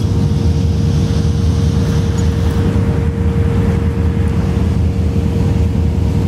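Steady machinery drone on a factory trawler's fish-processing deck: a deep, unchanging hum with a single steady tone a little higher up.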